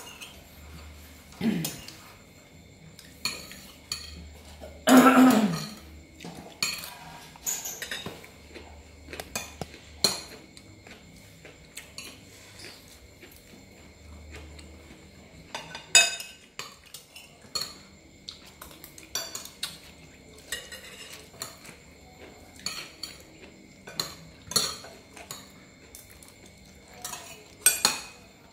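Metal spoons clinking and scraping on ceramic plates during a meal, in irregular sharp clicks. About five seconds in there is one louder, longer sound that falls in pitch.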